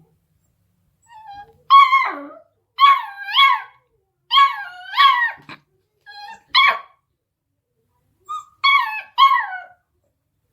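An 8-week-old beagle puppy barking in high-pitched yips, about ten of them in short bunches of one to three, several sliding down in pitch at the end.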